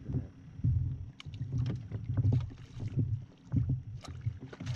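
A hooked crappie splashing at the water's surface while a landing net is worked in beside the boat, with repeated dull knocks and splashes a few times a second.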